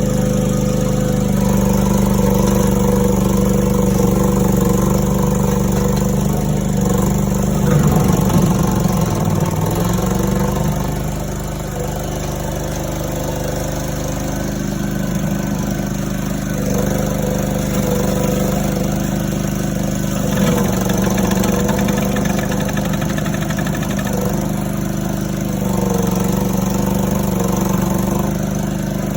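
Mini skid steer's engine running steadily at working speed while its brush cutter attachment cuts through thick brush. About eight seconds in, the engine note sags briefly and then recovers.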